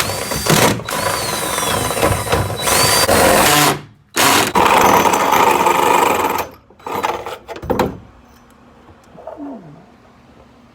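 Power drill running in two long bursts of about four and three and a half seconds, with a high whine sliding up and down during the first.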